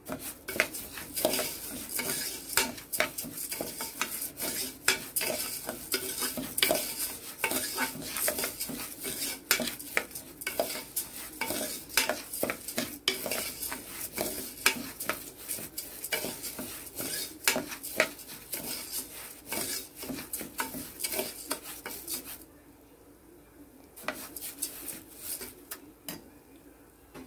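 A metal spoon stirring split moong dal frying in ghee in a pressure cooker pot, with frequent scrapes and clinks against the pot over a light sizzle. The stirring stops about 22 seconds in, and only a few faint clicks follow.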